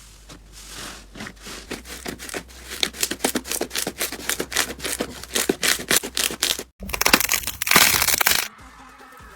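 Slime being squeezed and pressed, giving rapid crackling and popping clicks. Just under seven seconds in there is a sudden cut to a louder crunching burst, which gives way to quiet near the end.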